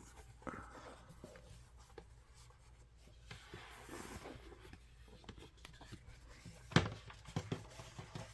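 Handling noises as a fabric desk mat is taken out of its cardboard box: small scattered clicks and soft scraping in the middle, and a sharp knock near the end.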